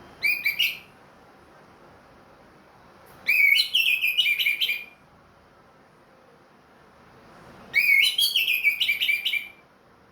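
Orange-headed thrush (anis merah) singing: a short whistled phrase at the start, then two longer rapid whistled phrases of about a second and a half each, a few seconds apart.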